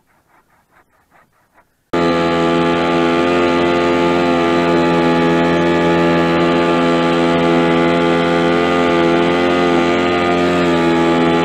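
Faint, evenly spaced strokes of a hand saw cutting a fallen birch branch. Then, about two seconds in, a Honda four-stroke outboard motor cuts in loud and runs at a steady speed, a constant hum with many overtones, pushing the inflatable boat along.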